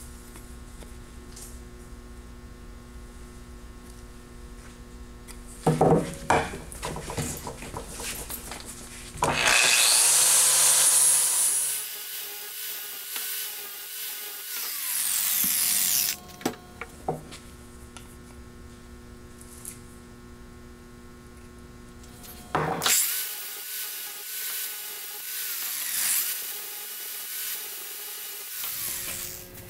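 Angle grinder with a sanding disc sanding a wooden hammer handle, in two long loud passes with a short touch before them.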